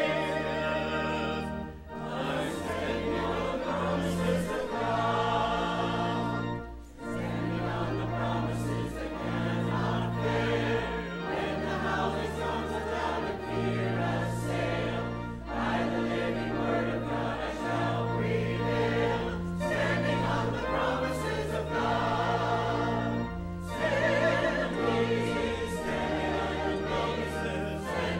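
Church choir singing a hymn in chorus over sustained low organ notes, with brief pauses between phrases about 2 and 7 seconds in.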